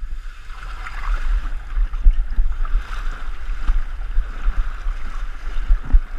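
Wind noise on the microphone: irregular low rumbling under a steady hiss.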